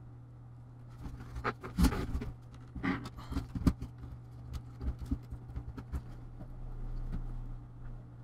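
Plastic clicks and knocks from a partly stripped laptop's case being turned over and handled, the loudest about two seconds in and again near four seconds, over a steady low hum.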